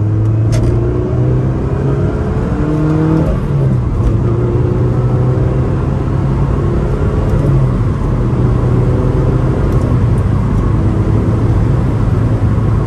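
2006 Mazda Miata's 2.0-litre MZR inline-four pulling hard under acceleration with the manual gearbox. The engine note rises steadily, drops at an upshift about three seconds in, then climbs again, heard from inside the cabin.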